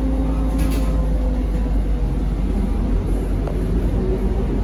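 Inside a ZiU-682V trolleybus under way: a steady low rumble of the running vehicle, with a steady hum that fades out about a second and a half in.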